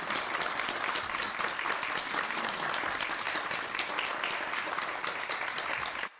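Congregation applauding steadily with many hands clapping. The applause cuts off suddenly near the end, leaving a brief echo of the room trailing away.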